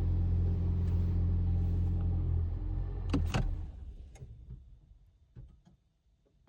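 Toyota Aqua hybrid's 1.5-litre four-cylinder petrol engine running steadily with a low hum, then shutting down about two and a half seconds in. A couple of sharp clicks come as it stops, followed by a few fainter clicks and knocks.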